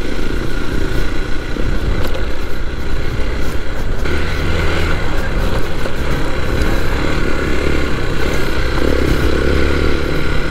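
Hero Xpulse 200 4V's single-cylinder engine running steadily as the motorcycle is ridden, its note growing louder about four seconds in.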